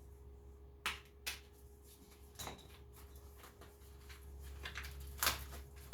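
A few short, sharp clicks and knocks of hand tools and their case being handled, four or so spread out, over a faint steady hum.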